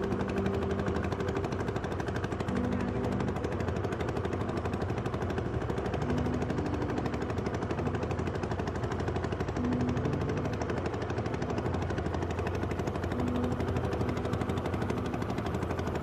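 A small engine running steadily with a fast, even rattle. Short low tones break in every few seconds.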